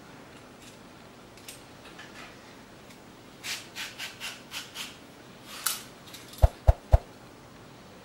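Swivel vegetable peeler shaving strips off a white radish: a quick run of about six scraping strokes, then three sharp knocks near the end.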